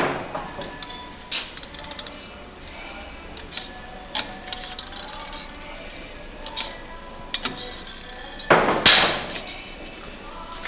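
Scattered clicks and taps of small parts being handled, with a quick run of ticks about two seconds in and one louder clatter near the end.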